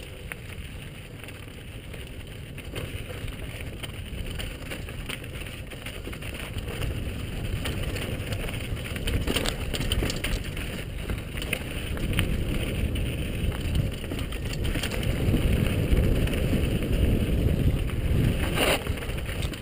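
Mountain bike rolling fast down a rocky dirt trail: wind rushing over the helmet-mounted microphone, tyres on loose gravel and the bike rattling over rocks, with a few sharp knocks. The noise grows louder as the bike picks up speed.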